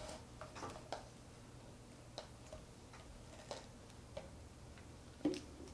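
Light, scattered clicks and taps from a food container being handled and worked open by hand, with a sharper click about five seconds in, over a faint steady low hum.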